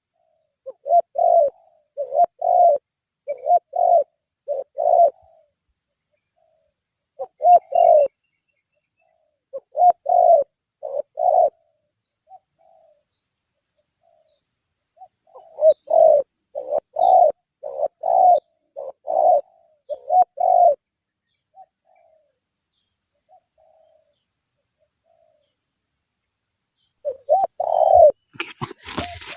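Spotted dove (tekukur) cooing in bouts of several short coos, with pauses of a few seconds between bouts. Faint high chirps repeat in the background, and there is a brief rustling knock at the very end.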